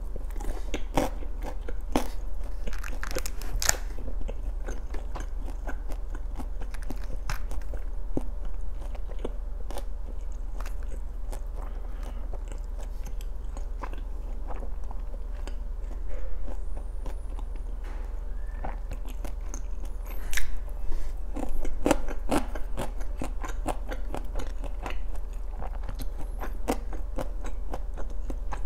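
Close-miked chewing and biting of gimbap (seaweed-wrapped rice rolls), full of small wet mouth clicks and soft crunches. A steady low hum runs underneath.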